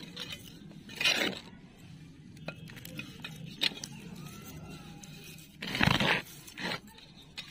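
Loose dry potting soil being scraped up off a cement floor with a hand trowel and by hand and tipped into a plastic flower pot: scattered gritty scrapes and rustles with small clicks, the loudest about a second and a half before the end.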